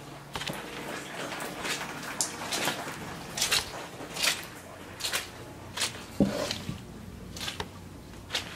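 Footsteps squelching on water-soaked carpet, a short wet squish at each step at a slow walking pace.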